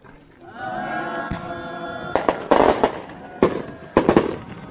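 Firecrackers going off: a quick run of sharp bangs about two seconds in and another run about a second later, over people singing together.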